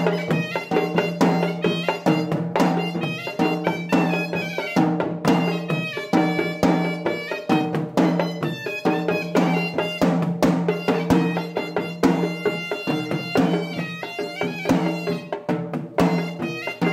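Traditional drumming with a reedy wind instrument playing a melody over a steady low drone.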